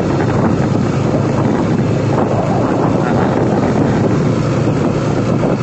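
Wind buffeting the microphone of a moving motorcycle, over the steady running of its engine.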